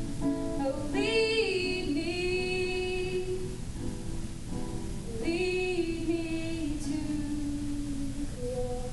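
A girl singing two long, held phrases near the end of a worship song, with her guitar accompanying.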